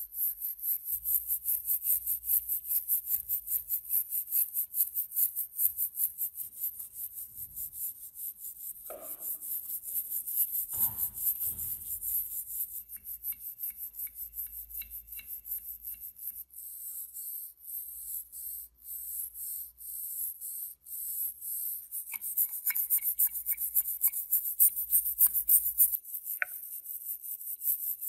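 Stiff wire brush scrubbing rust off a cast-iron meat grinder in quick back-and-forth strokes, a dry scratchy hiss with each stroke. The strokes thin out in the middle and come hardest near the end, with two soft knocks partway through.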